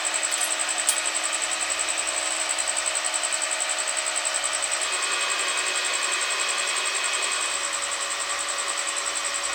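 Stick welding arc sizzling steadily as an electrode burns, with an even pulsing of about seven beats a second.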